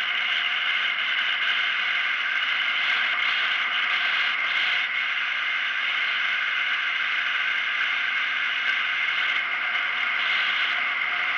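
Steady driving noise of a vehicle travelling along a road, picked up by the onboard camera's own microphone: an even, thin hiss and hum with almost no bass.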